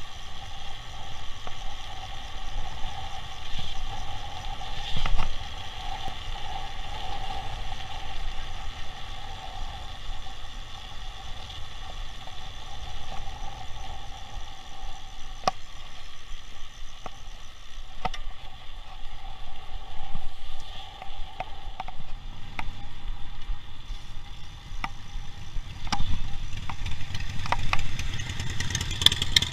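Bicycle ride along a city road: rolling and wind noise on the microphone with traffic around, and scattered clicks and rattles from the bike. Near the end a motor vehicle's engine gets louder.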